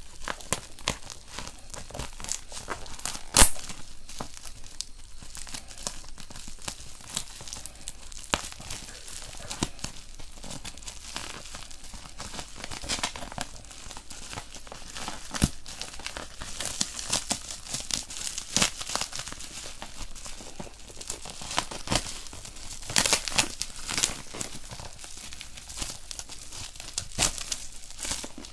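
Packaging being unwrapped by hand: continual crinkling and crackling with tearing, and a few sharper, louder snaps now and then.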